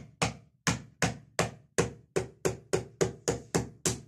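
Whole coconut's hard shell struck again and again with a knife, even sharp knocks about three to four a second, to crack it open.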